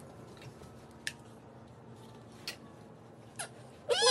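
Large plastic toddler building blocks clicking and knocking against each other, a few sharp clicks spaced about a second apart. Near the end a toddler's loud high voice breaks in, falling in pitch.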